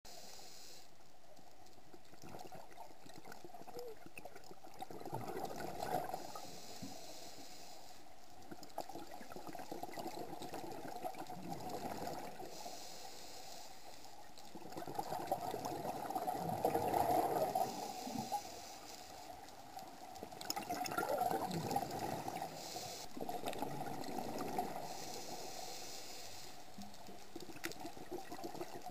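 Scuba regulator breathing heard underwater: bursts of exhaled bubbles gurgling every few seconds, the longest about halfway through, with a fainter hiss between them.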